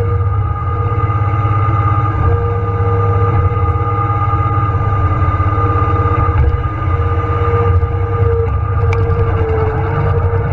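John Deere 1023E compact tractor's three-cylinder diesel engine running steadily, with a steady whine above the engine note.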